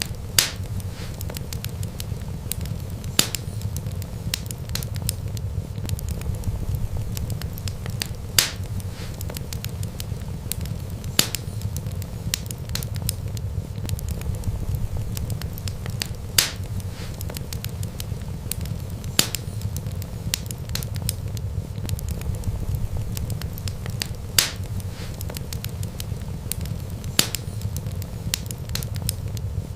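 Wood fire crackling over a steady low rumble, with a sharp pop every few seconds and many fainter crackles in between.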